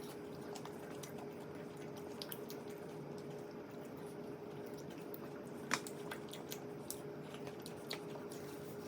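Man eating a chicken wing: wet chewing and mouth smacks heard as scattered sharp clicks, over a steady faint hum.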